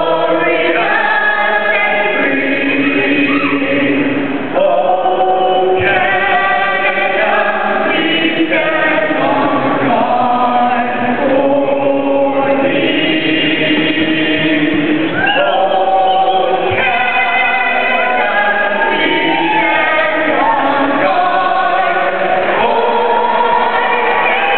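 A national anthem being sung in a hockey arena, the melody held in long sung notes.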